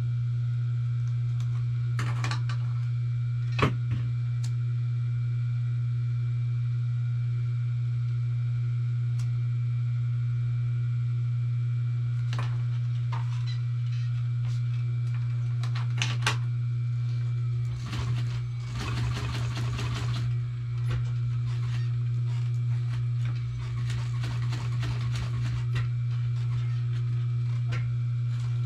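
Industrial sewing machine's electric motor humming steadily while idling, with a few sharp clicks. About two-thirds of the way through comes a few seconds of rapid stitching clatter as the machine runs.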